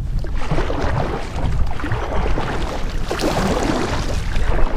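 Strong wind buffeting the microphone in a low rumble, with water splashing and lapping against a kayak that swells about a second in and again past three seconds.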